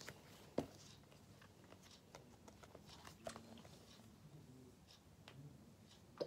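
Near silence, with a few faint clicks and rustles of a hardcover book being handled; the sharpest click comes about half a second in.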